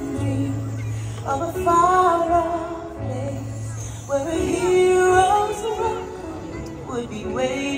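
Fireworks-show soundtrack music with a woman singing long held notes over a steady bass line.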